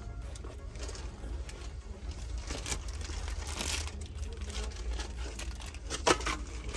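Rustling and crinkling with scattered clicks over a low steady rumble, and one sharp knock about six seconds in.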